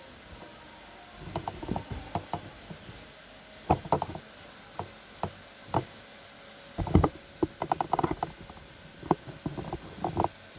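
Hands tapping and clicking on a reassembled MSI GF65 laptop: irregular clicks and knocks, some single and some in quick clusters.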